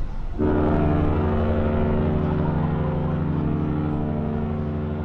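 A cruise ship's horn sounding one long, steady blast, starting abruptly about half a second in.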